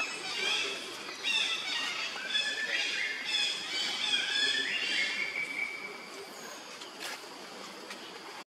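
Newborn macaque infant giving a series of high-pitched cries. The calls repeat with short steps and glides in pitch and die away after about five seconds.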